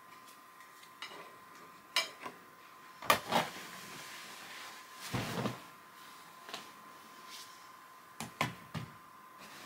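Scattered knocks and clicks of things being handled, like a cupboard or dishes. The loudest pair comes about three seconds in, a duller thud a little after five seconds, and a quick cluster near the end, over a faint steady high tone.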